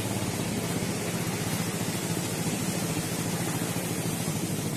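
Motorcycle engine idling steadily, with a fast, even pulse.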